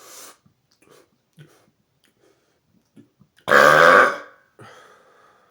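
A man's single loud burp, about half a second long, roughly three and a half seconds in, with a fainter trailing sound just after it. By his own word it is "weak sauce", short of the loud burps he is aiming for.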